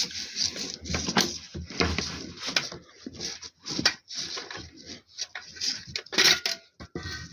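Hard objects being handled on a work surface: irregular rattling, scraping and sharp clicks, with a louder cluster of clicks about six seconds in.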